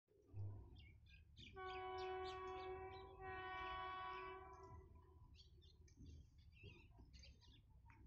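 Horn of a distant WAP4 electric locomotive, sounded as two long blasts back to back starting about a second and a half in, with birds chirping around it. A brief low thump comes at the very start.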